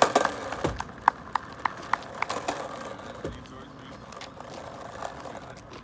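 Skateboard rolling over pavement, with a quick run of about seven sharp clacks, roughly three a second, in the first half.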